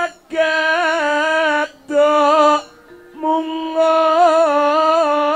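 A solo voice singing slow Javanese verse in long held notes that waver in pitch, with a short break about halfway through.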